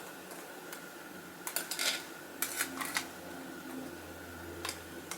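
Light clicks and taps of small toy car parts being handled and fitted, in a few short clusters, over a faint steady hum.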